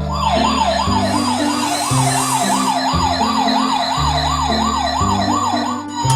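A toy fire truck's electronic siren sound effect, wailing up and down fast, about two and a half times a second. Under it runs a low electronic note pattern that changes about once a second. The wail stops just before the end.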